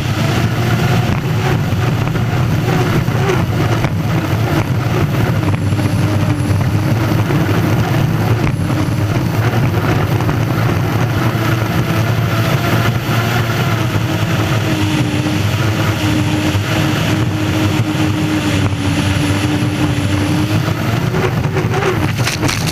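Gas-turbine engine of an unlimited hydroplane running at racing speed, heard from on board: a loud, steady roar with a held tone that wavers slightly in pitch.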